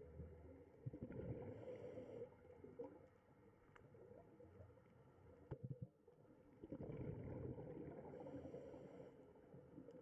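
Faint, uneven low rumble and gurgling of aquarium water, swelling twice, with a few soft clicks.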